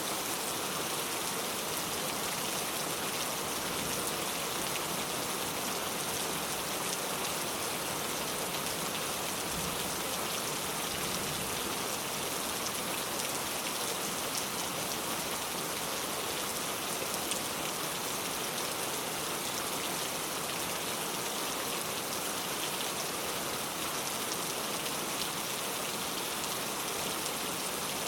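Steady rain falling, an even, unbroken hiss of many drops with no thunder or other events.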